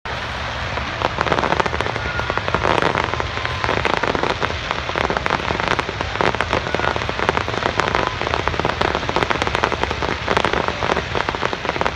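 Fireworks finale: a dense, continuous crackling of many small bursts going off at once, like heavy rain.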